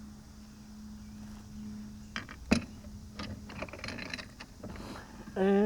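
Objects being handled: a sharp knock about two and a half seconds in, then light clicks and rustles, over a steady low hum.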